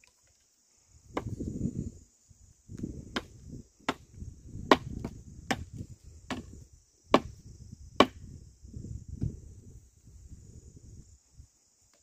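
Crickets or cicadas buzzing steadily and high. Over them the ox-drawn wooden plough scrapes and rustles through dry soil, with about eight sharp clicks less than a second apart.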